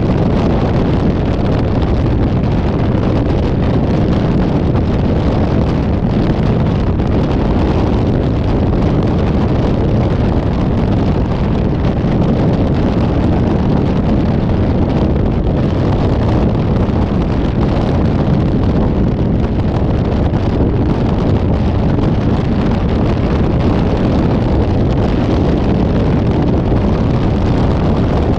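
Steady wind and road noise of a moving vehicle, strong on the microphone, with no horn or other distinct event standing out.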